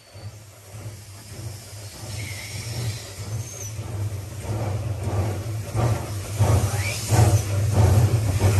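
Narrow-gauge Hudswell Clarke steam locomotive approaching while working hard uphill, its exhaust beats coming through at a bit over two a second and growing louder over a steady low hum.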